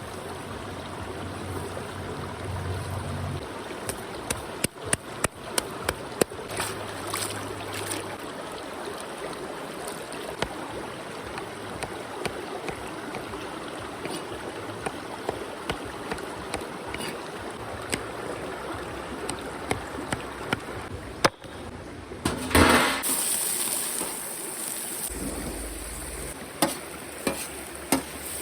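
Steady rushing of a stream, broken by a quick run of sharp knocks about four seconds in and another near the end, with one brief louder rush a little after the middle.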